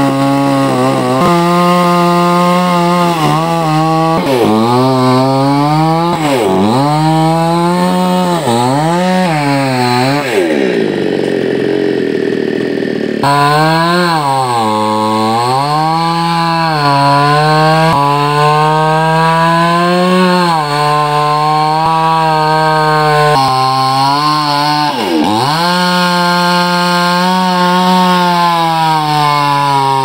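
Chainsaw cutting into the base of a tree trunk. Its pitch falls away sharply and climbs back again several times, and for a couple of seconds near the middle the steady note gives way to a rougher, noisier sound.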